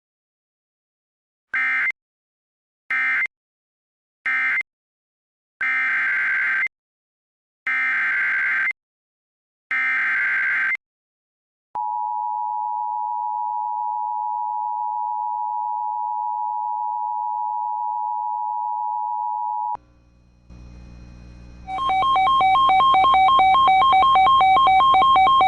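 Emergency Alert System data bursts: three short end-of-message bursts, then three longer SAME header bursts about a second apart, each a harsh digital screech. These are followed by the EAS two-tone attention signal, held steady for about eight seconds. Near the end a loud, repeating electronic tone pattern starts.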